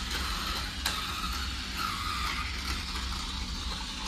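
Battery-powered toy bullet train running along its plastic track, the motor and gears whirring with a steady rattle of wheels on the track, and a sharp click about a second in.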